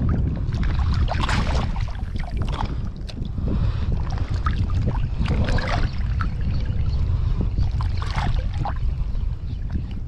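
Wind buffeting the microphone in a steady low rumble, with water sloshing in brief rushes a few times, as from a small boat on the sea.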